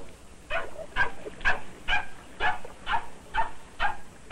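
A steady series of short, bark-like animal calls, about two a second.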